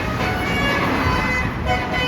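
A bus's Basuri telolet multi-tone air horn playing a melody of steady notes that change in quick steps, over the bus engine's low rumble.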